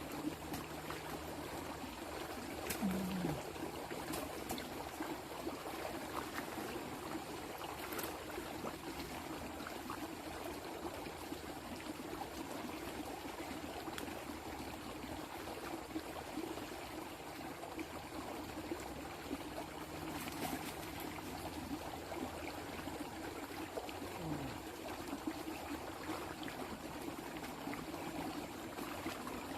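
Rainwater flowing steadily in a stream after a storm.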